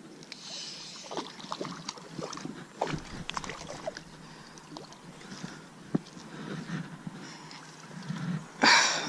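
Hooked bass splashing at the water's surface as it is played in on a fly rod, with scattered clicks and rustles of tackle and handling. A louder, brief splash comes near the end.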